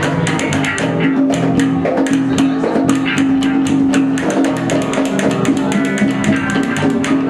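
Live rock band playing an instrumental passage: guitar and bass guitar over a quick, steady run of hand-percussion hits.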